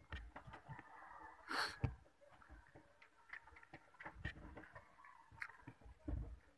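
Quiet eating sounds: chewing, with small scattered clicks of fingers picking rice off a ceramic plate, and one short noisy burst about a second and a half in.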